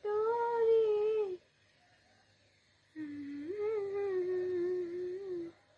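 A voice making two long, drawn-out humming tones, each held for over a second with a slight wavering pitch, the second a little lower and longer, with a pause between them.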